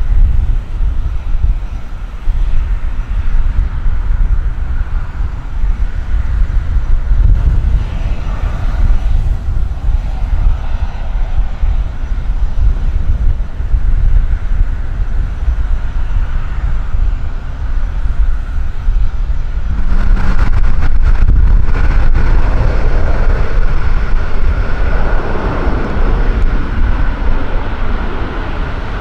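Twin-engine business jet taking off and climbing away: steady jet engine noise with a high whine, over a heavy, gusting low rumble of wind on the microphone. About twenty seconds in it gives way to a louder, brighter jet sound from a Boeing 737-800's engines on landing approach.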